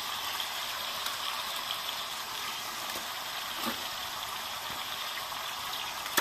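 Chunks of seasoned pork sizzling steadily in a cast-iron pot on a wood-burning stove as the meat starts to fry. A single sharp knock comes right at the end.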